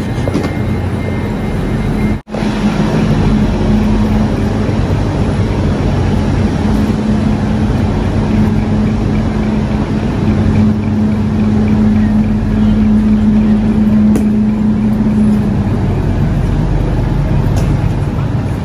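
Steady drone of a Eurostar high-speed train standing at the platform, its low hum held under the noise of the station hall. The sound cuts out for an instant about two seconds in, and the hum drops away a few seconds before the end.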